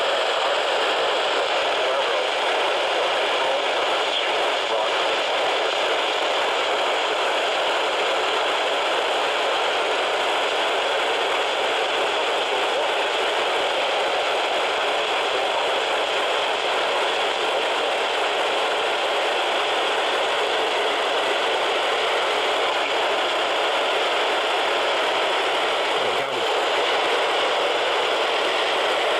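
Steady radio static hiss from a receiver with no clear signal, narrow like a radio's audio band, with a brief click and dropout about 26 seconds in.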